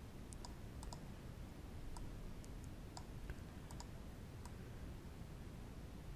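Computer mouse clicking: about a dozen faint, irregular clicks over the first four and a half seconds, then only a low, steady background hiss.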